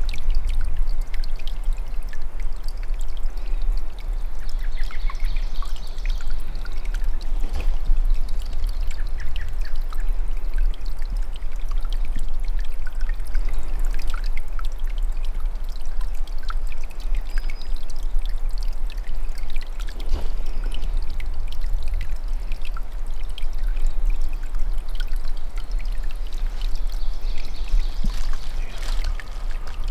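A steady rushing noise with a deep rumble underneath, with no clear breaks.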